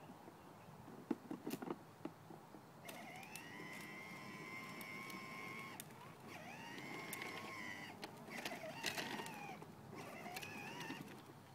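Electric motor of a battery-powered Lightning McQueen ride-on toy car whining in three or four spurts of a few seconds each as it drives, each spurt rising in pitch as the motor spins up. A few clicks come about a second in.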